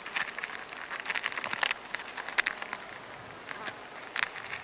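Black wood ants feeding on the remains of a bun inside a paper bag: a fine, irregular crackling and rustling of paper with small sharp ticks. It is busiest early on, sparser for a second or so past the middle, then a sharper crackle comes near the end.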